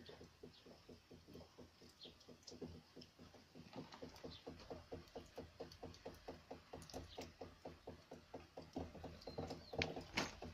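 A faint drum beating fast and evenly, about four or five beats a second, growing louder about four seconds in.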